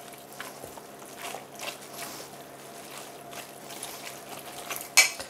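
Cooked vegetable filling being stirred and folded with a spatula in a stainless steel bowl: soft, wet squishing and light scraping, with one short sharp knock near the end.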